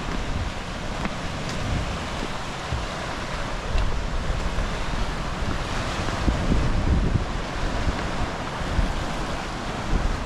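Lake Superior waves breaking on the shore, a steady wash of surf, with wind buffeting the microphone in gusts that grow stronger from about halfway through.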